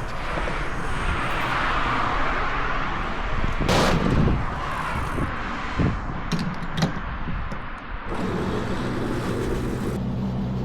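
Turbocharged B48 four-cylinder of a stage-2-tuned BMW 220i with a free-flowing downpipe and M240i exhaust pulling under load, with turbo and intake hiss. About four seconds in comes a loud bang, then a few sharp exhaust pops and crackles on lift-off. For the last couple of seconds it drones steadily at low revs.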